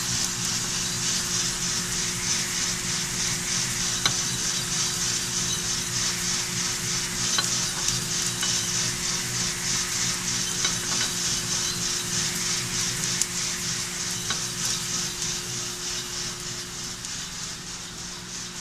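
Probat GG150 drum coffee roaster running mid-roast: beans tumbling in the rotating drum make a steady rustling hiss that pulses about three times a second, over a steady machine hum. A few sharp clicks stand out, the loudest about four seconds in.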